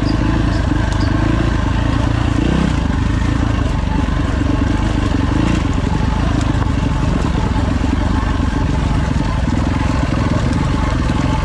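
Four-stroke single-cylinder dirt bike engine running continuously, loud and steady.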